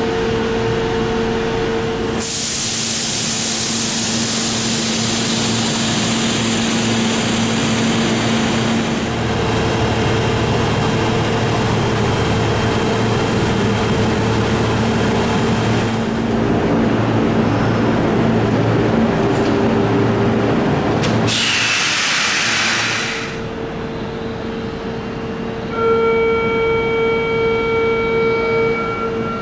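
Sotetsu Moya 700 inspection train in an underground station: a steady electrical hum with a long hiss of released air lasting over ten seconds, then a second shorter hiss. Near the end comes the train's running noise with a few steady high tones as it comes into the platform.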